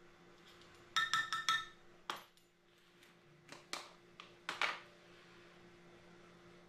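Metal measuring spoon clinking four or five times in quick succession with a bright ring about a second in, followed by a few sharper clicks and taps as small jars of lure flake are handled and opened.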